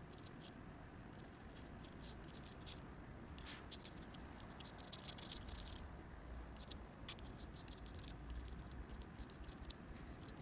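Metal pen nib scratching across paper as a drawing is inked: quick irregular strokes and ticks in clusters with short pauses between them, over a faint low hum.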